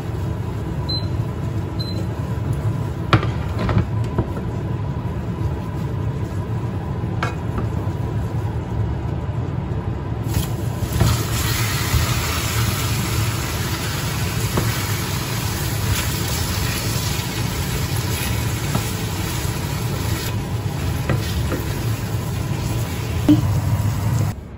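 Caramel sizzling in a frying pan as it is stirred with a wooden spatula, with a few sharp taps of the spatula on the pan. About ten seconds in, apple pieces are tipped into the hot caramel and the sizzle turns into a brighter hiss for about ten seconds, then settles. A steady low hum runs under it.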